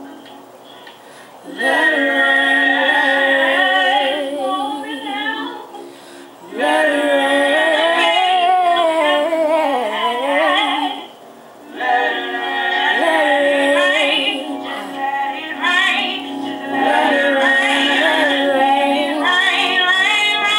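Gospel singing led by a woman's voice, in long sung phrases with vibrato, broken by short pauses about six and eleven seconds in.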